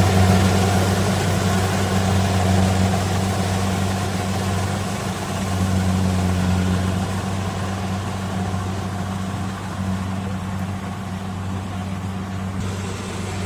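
Kubota combine harvester's diesel engine running steadily under load as it cuts rice, a low hum with machinery noise above it, fading gradually as the machine moves away.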